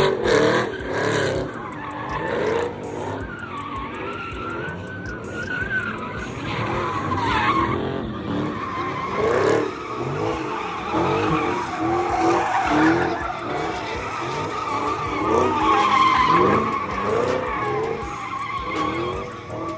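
Car tires squealing in a long wavering screech as cars slide through donuts, with engines revving up and down over and over.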